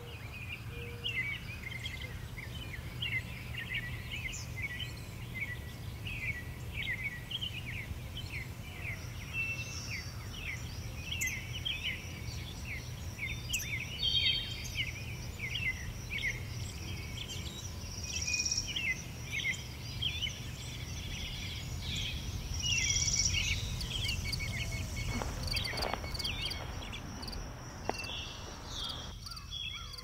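Outdoor ambience of many small birds chirping rapidly, with a steady high-pitched tone coming in about ten seconds in and a low steady rumble underneath.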